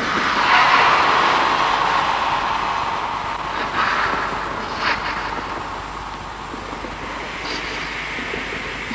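A steady, wind-like rushing noise from a film soundtrack. It swells in at the start, peaks about a second in and slowly eases off, with a couple of brief hissy accents near the middle.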